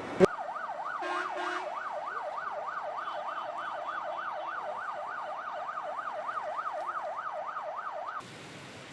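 Emergency vehicle siren on a fast yelp, its pitch sweeping up and down about three times a second, cutting off abruptly near the end. A sharp click comes just before it starts, and a short horn-like blast sounds about a second in.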